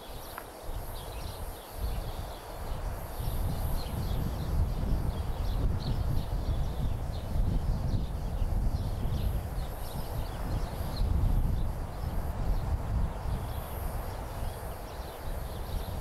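Outdoor nature ambience: a constant, uneven low rumble with scattered short, high chirps.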